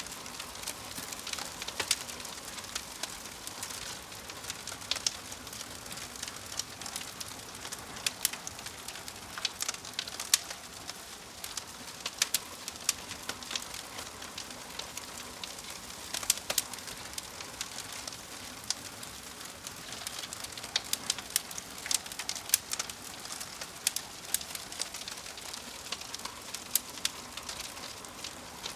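Wood fire crackling in a fireplace: a steady hiss broken by many irregular sharp pops and snaps.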